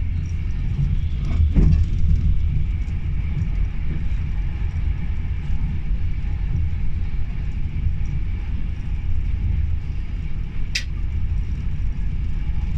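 Cabin running noise of a Class 390 Pendolino electric train at speed: a steady low rumble from the wheels on the track, with a faint steady high whine. A louder thump comes about a second and a half in, and a short sharp click near the end.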